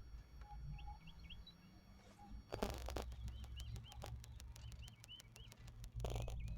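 Small birds chirping in short repeated calls, in little clusters. A brief rustling clatter comes about two and a half seconds in and again near the end.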